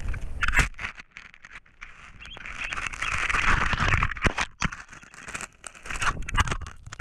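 Rustling, scraping and clicking of an eagle's feathers and talons against a camera held right up to its microphone, with a louder stretch of rustling in the middle.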